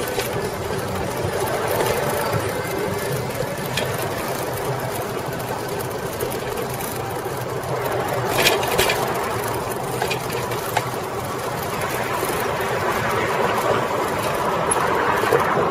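Coker Monster Cruiser bicycle with 36-inch tyres being ridden on a city street: a steady mechanical noise of the tyres and single-speed chain drive running, with a few sharp clicks about halfway through.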